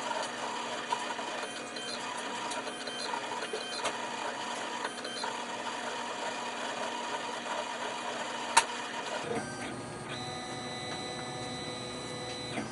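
A small jewelry CNC engraving machine running its inside-ring engraving attachment, its motors whirring steadily as it engraves a name inside a ring. One sharp click after about eight and a half seconds, then the cutting noise stops after about nine seconds and a steadier hum is left as the job finishes.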